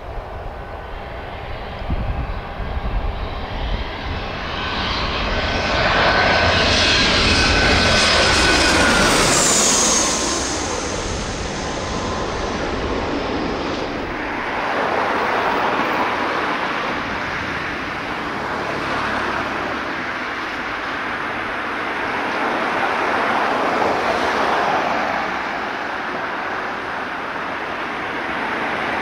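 Jet aircraft passing close on landing: the engine noise builds to a peak and its whine drops in pitch as it goes by, about ten seconds in. The engine roar then carries on, swelling and easing.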